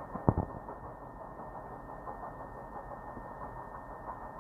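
A steam train moving away gives a steady, distant rumble. A couple of sharp knocks come about a third of a second in.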